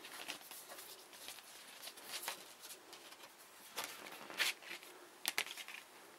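Paper and card rustling as an LP sleeve is handled and the vinyl record slid out of it, with scattered light brushes and clicks; the sharpest come about four and a half and five and a half seconds in.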